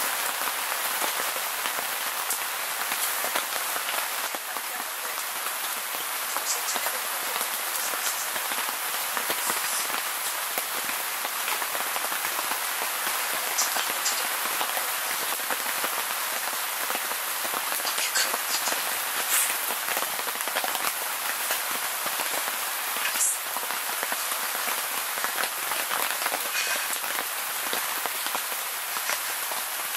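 Heavy rain falling on a tent: a steady, dense hiss with a few sharper ticks scattered through it.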